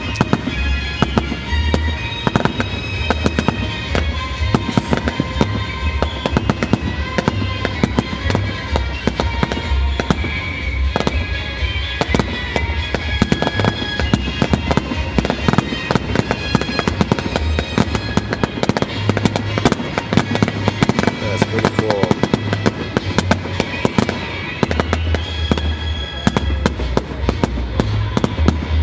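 Aerial fireworks display: a rapid, unbroken series of shell bursts and crackling reports, many bangs a second, over music playing along with the show.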